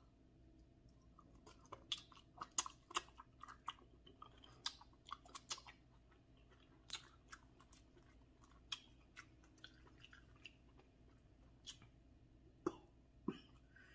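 Close-miked chewing and mouth sounds of someone eating butter-sauced seafood: scattered wet clicks and smacks at an irregular pace, with a pair of heavier ones near the end.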